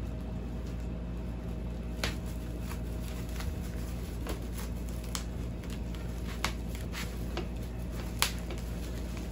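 Scissors cutting into thick plastic packaging: a handful of sharp, irregular snips with crinkling of the wrap, the loudest snip near the end, over a steady low hum.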